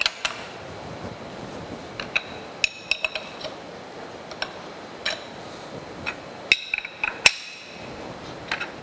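Steel wrench clinking against the clamp bolt on a milling machine's universal head as the dovetail clamp is tightened: irregular sharp metallic clicks with a short ring, in small clusters, over a steady background noise.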